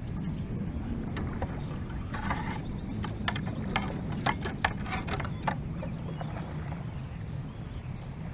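A run of sharp clicks and knocks from a fishing rod and tackle being handled aboard a kayak, thickest a few seconds in, over a low steady rumble.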